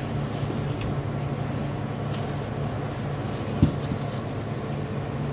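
Steady low hum of a cooling unit, with light rustling of plastic bags of microgreens being handled and a single sharp knock about two-thirds of the way in.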